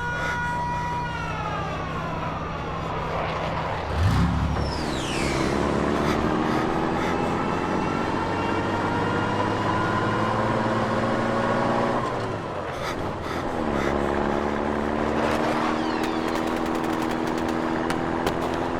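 Layered war sound effects: motor vehicle engines droning and slowly rising in pitch as they accelerate, one cutting off and another taking over partway through. Near the start a horn-like tone falls away, and about four seconds in there is a thud followed by a falling whistle.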